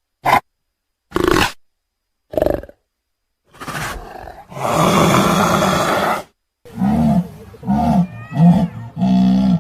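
Lion vocalising: three short calls with silence between, a longer roar, then a run of deep grunts about one every two-thirds of a second, the way a lion's roaring bout ends.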